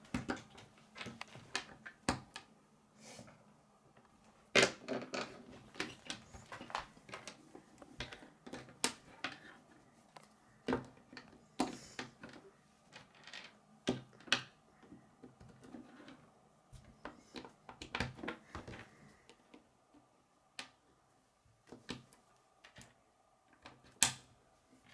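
Kid K'nex plastic pieces and connector rods being clicked and pushed together by hand and knocked against a wooden tabletop: irregular scattered clicks and clacks, one of the sharpest near the end.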